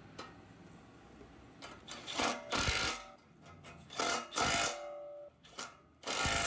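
Impact wrench tightening bumper-mount bolts in three short bursts of rapid hammering, with a brief blip between the last two.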